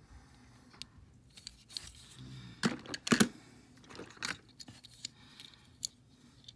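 Handling of small die-cast toy cars: scattered clicks, taps and scrapes of metal and plastic against fingers and a hard surface, with a few louder clacks about three seconds in.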